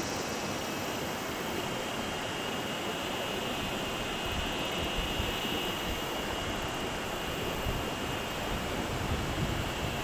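River water rushing steadily, with low uneven wind buffeting on the microphone from about four seconds in.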